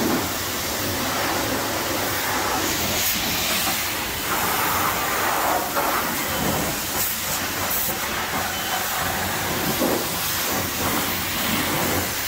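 High-pressure wash wand spraying water and soap onto a snowmobile, a steady hiss of spray spattering on its hood, windshield and seat.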